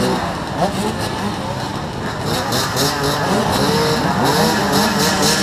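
A crowd of motocross dirt bikes idling together at the start, with several riders blipping their throttles so engine pitches keep rising and falling over one another.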